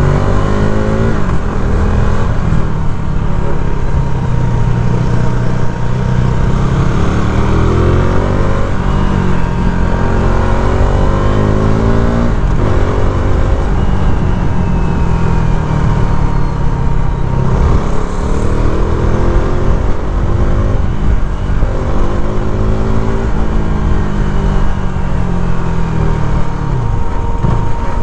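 KTM RC 390's single-cylinder four-stroke engine under way, its pitch climbing as it revs up and dropping back at each gear change, over and over.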